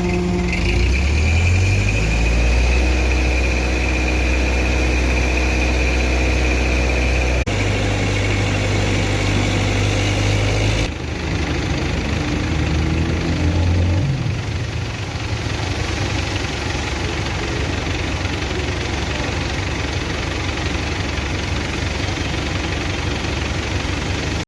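Engine of construction machinery running steadily, with a high steady whine over it for the first few seconds; the sound shifts abruptly a few times, about a third and halfway through.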